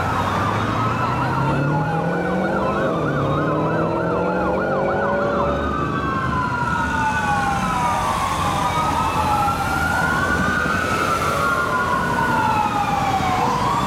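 Sirens of a responding fire engine and ladder truck sounding together: overlapping wails sweeping slowly up and down, with a fast yelp for a few seconds near the start and a lower tone climbing in pitch over the first few seconds.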